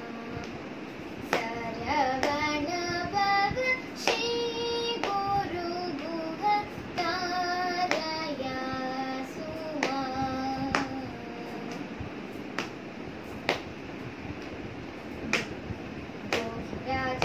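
A girl singing a Carnatic song solo, holding long notes with ornamented slides between them. Her hand comes down on her lap in sharp pats every second or few, keeping the tala.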